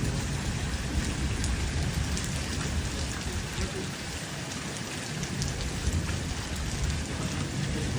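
Steady rain falling, with a low rumble underneath that eases off around the middle and then comes back.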